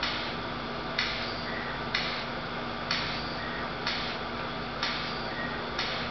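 Recorded song played back through a speaker, in a quiet break without singing: a sharp hit about once a second over a faint steady hiss.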